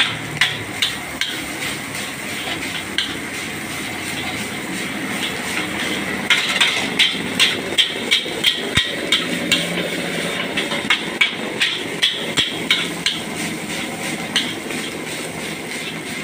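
Metal spatula clanking and scraping against a wok as fried rice is stirred and tossed, over a steady hiss of frying and the gas burner. The clanks come about twice a second from about six seconds in.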